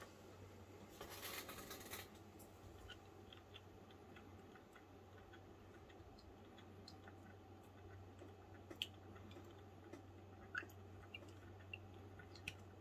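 Near silence: room tone with a steady low hum, a soft hiss about a second in, and a few faint scattered clicks.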